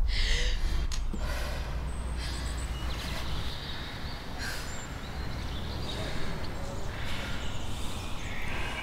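A woman's heavy, gasping breaths, a run of sharp irregular inhales and exhales about every second or two, over a low rumble that fades about halfway through.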